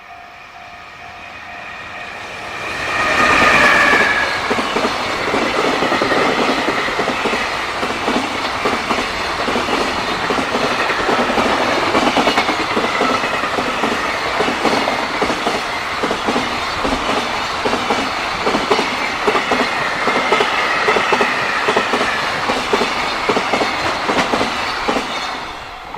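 JR Freight freight train passing over a level crossing: the locomotive comes by loudly about three seconds in, then the wagons' wheels clatter over the rail joints in a steady rhythm for about twenty seconds before the sound fades as the last wagons pass. A level-crossing warning bell rings at the start and is drowned out as the train arrives.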